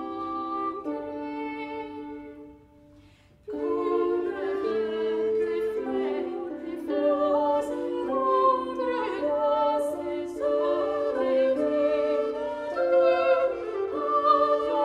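An early-music ensemble performing medieval or Renaissance music, with several pitched parts holding and moving between notes. About three seconds in, a phrase dies away almost to silence, then the music starts again with all parts together.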